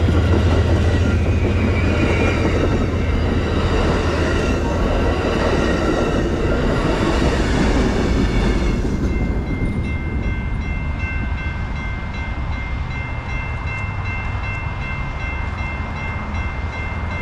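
Amtrak passenger train passing close by at a grade crossing, its cars' wheels rumbling and clacking over the rails, with the trailing locomotive's engine passing about eight seconds in. The train's noise then drops away, leaving the crossing bell ringing steadily.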